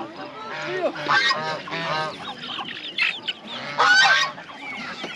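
Several geese honking, many calls overlapping, with a loud burst of honks about four seconds in.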